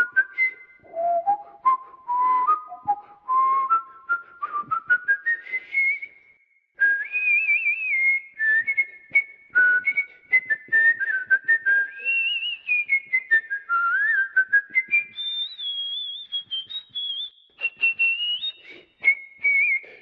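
A person whistling a tune with pure, clear notes that step from pitch to pitch. The notes climb in short steps over the first few seconds, break off briefly about six seconds in, then carry on at a higher pitch with small slides between notes.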